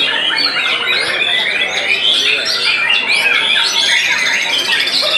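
Several white-rumped shamas singing at once in competition, a continuous tangle of overlapping whistles, glides and rapid chattering trills.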